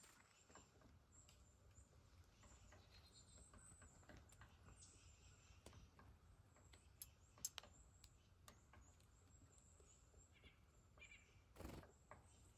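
Faint chirps and twitters of small wild birds, with scattered light clicks and taps.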